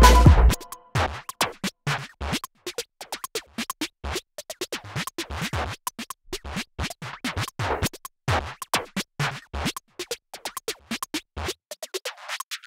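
Electronic music. A fuller passage with held tones cuts off about half a second in, leaving a choppy run of short, scratch-like percussive hits separated by brief silences.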